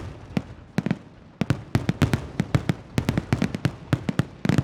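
Fireworks bursting in rapid, irregular succession: a few sharp bangs at first, then a dense run of several per second from about a second and a half in, each with a short rumbling echo.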